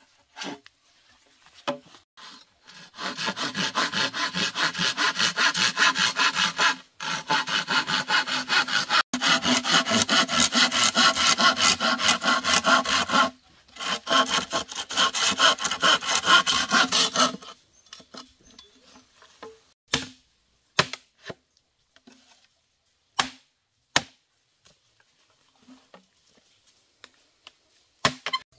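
Fast rhythmic scraping strokes, about three or four a second, keep on for some fifteen seconds with two brief breaks, then stop. After that come scattered sharp light knocks.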